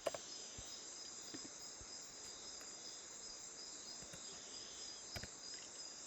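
Steady high-pitched hiss and whine of background noise, with a few faint clicks of a computer mouse, the strongest about five seconds in.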